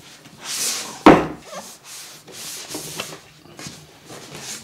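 A cardboard box being handled and opened: scratchy rubbing and sliding of cardboard, with one sharp, loud knock about a second in and smaller taps and rustles after it.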